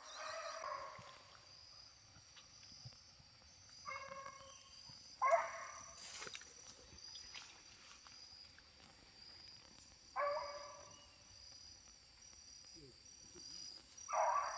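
Faint barking of hunting dogs on a chase, five short barks spaced a few seconds apart, over a steady high drone of insects.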